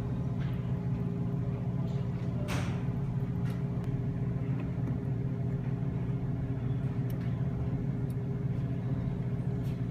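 A small motor running with a steady low hum, with one brief click about two and a half seconds in.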